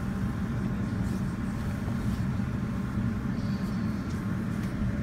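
R160 subway train running, a steady low rumble of wheels and motors heard from inside the crowded car.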